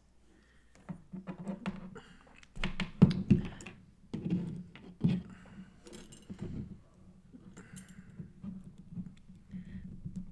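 Irregular small plastic clicks, taps and knocks as the hand of a Mezco One:12 Collective Cable action figure is worked off and onto its wrist peg, loudest about three seconds in.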